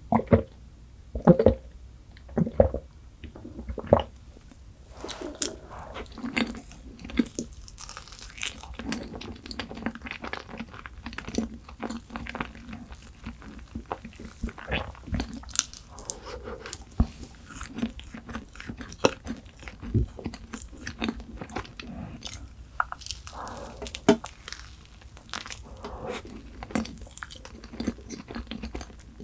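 Close-miked eating: crisp crunching bites and chewing of chocolate snacks. A few louder crunches come in the first four seconds, then a steady run of small crunches and mouth sounds.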